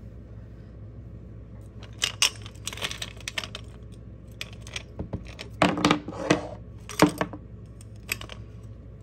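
Tarot cards and small objects handled on a tabletop: a run of sharp clicks and short rustles that starts about two seconds in, over a low steady hum.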